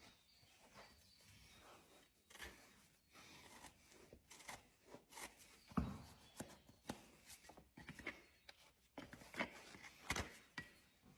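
Farrier's hand tools working on a horse's hoof: irregular small cuts, scrapes and clicks, with a few sharper snaps around the middle and near the end.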